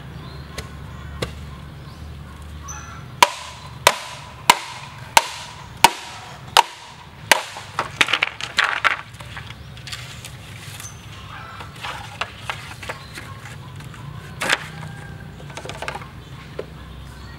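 Machete chopping into bamboo in seven sharp, evenly spaced strokes, each with a brief ringing tone, followed by a short burst of crackling as the bamboo cracks and splits. A few lighter knocks and one harder strike come later.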